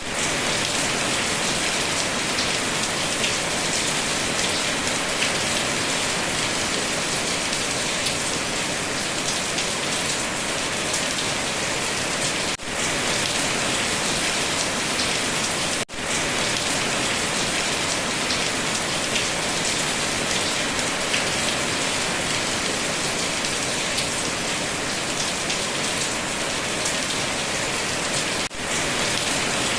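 Steady, dense rain falling and pattering on surfaces. It cuts out for a split second three times: about twelve seconds in, about sixteen seconds in, and near the end.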